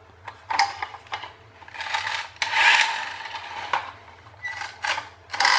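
Lanard pull-cord toy cars' coil-spring clockwork motors whirring through their gears in several short bursts, the longest about a second, as the cords are pulled and the mechanisms run.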